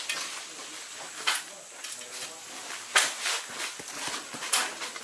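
Plastic nursery bags rustling as soil is scooped into them: three short scraping scuffs about a second and a half apart, over a steady high hiss.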